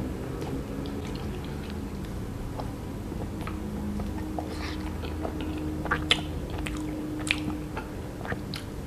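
Close-miked mouth sounds of eating a chocolate-coated ice cream bar: biting and chewing, with scattered small clicks and a few sharper ones past the middle.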